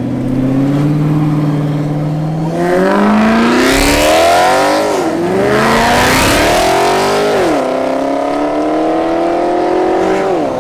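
Maserati GranTurismo MC convertible's V8 pulling away at a steady note, then accelerating hard: the revs climb, drop sharply at each upshift, three times, and climb again.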